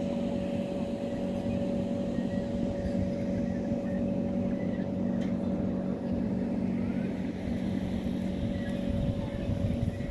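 A steady mechanical hum over a low rumble, holding a constant pitch; its lower tone fades out near the end.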